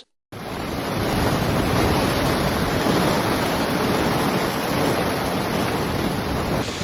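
Steady rushing noise of a thunderstorm, with wind and heavy rain. It comes in after a brief silence and builds over about a second.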